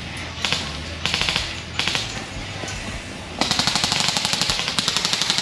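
Airsoft guns firing on full auto: rapid rattling bursts of shots, a short burst about half a second in, another just after a second, then a longer run of about two seconds near the end.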